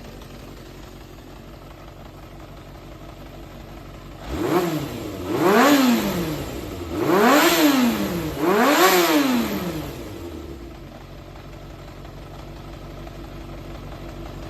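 Yamaha XJR400 air-cooled inline-four engine idling, then revved three times in quick succession, each rev rising and falling in pitch, before settling back to a steady idle. The seller describes it as running well with no abnormal noises.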